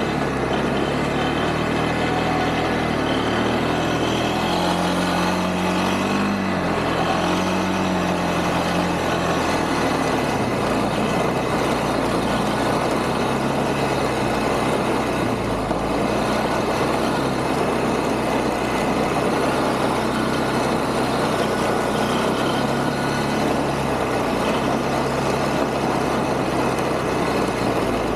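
Quad (ATV) engine running while the quad is ridden over snow. The engine's pitch rises and falls in the first ten seconds, then holds fairly steady. A steady rush of noise runs underneath.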